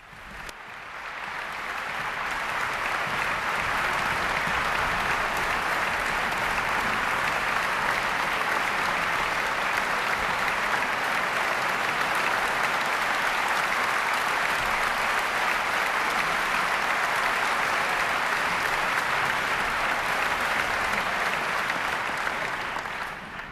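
Concert hall audience applauding, swelling up over the first couple of seconds, holding steady, then dying away near the end.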